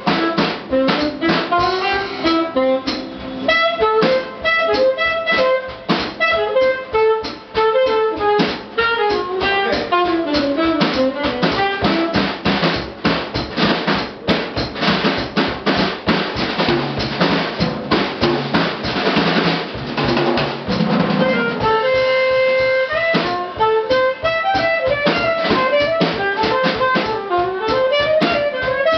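Saxophone playing fast jazz runs over a drum kit's steady cymbal and snare beat. In the middle the drums thicken into dense cymbal and drum playing, then the saxophone holds one long note before going back to quick lines.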